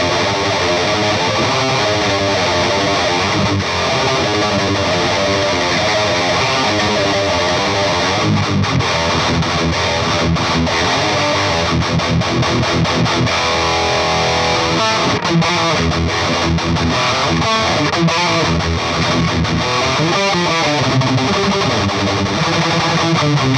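Electric guitar played through a Peavey Bravo 112 all-tube combo amp with the gain pushed up and a boost pedal in front: heavily distorted, saturated high-gain riffing.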